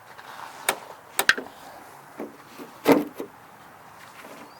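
Five sharp wooden knocks and clunks, the loudest about three seconds in: wooden greenhouse frame parts being handled and knocking together.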